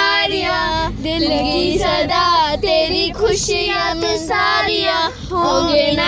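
A boy singing in held, bending notes, with the low rumble of the car underneath.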